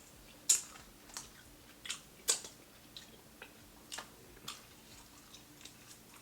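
Close-up chewing of crispy fried food, with sharp, irregular crunches of the fried batter, about ten in all; the loudest come about half a second in and just after two seconds.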